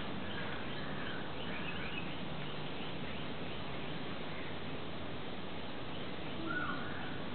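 Steady background hiss with faint, scattered bird chirps, and a louder falling call about six and a half seconds in.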